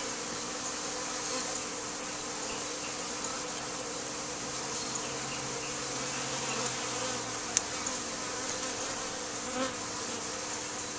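A swarm of honeybees from an opened bee package buzzing in a steady hum. A single sharp click sounds about two-thirds of the way through.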